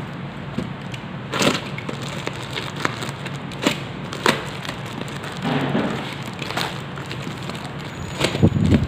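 Packaging being opened and handled: scattered sharp crackles and crinkles over a steady hiss, thickening into a louder run of crackling near the end.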